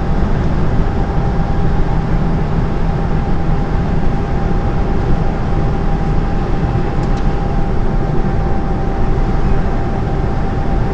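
Steady engine and road drone inside a lorry's cab at motorway speed, with a thin steady whine running through it.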